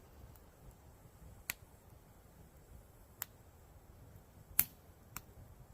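A few sharp, isolated pops from a small wood campfire crackling, about four over a few seconds, the third the loudest, over a faint low background.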